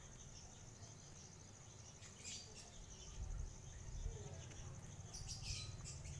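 Insects trilling steadily in a fast, even high-pitched pulse, like crickets. There is a low rumble underneath, with brief rustles about two seconds in and again near the end.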